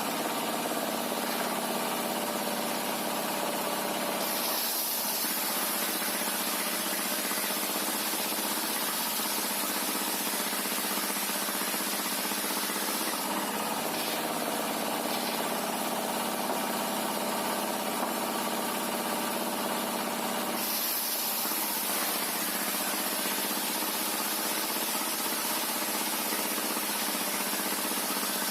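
Sawmill machinery running steadily. A high hiss strengthens for several seconds at a time, twice.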